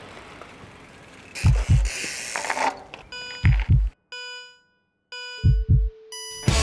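Heartbeat sound effect: deep double thumps, one pair about every two seconds. A rushing noise comes in after about a second and a half, and ringing electronic tones join in the second half.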